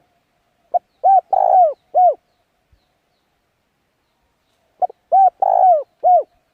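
A bird calling in two short phrases about four seconds apart. Each phrase is a quick pick-up note followed by three low, arching notes, the middle one longer and rougher.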